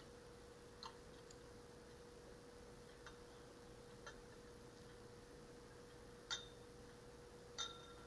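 Glass beaker clinking against the rim of another glass beaker while liquid is decanted off alum crystals: a few faint clicks, then two louder clinks near the end that ring briefly, over a faint steady hum.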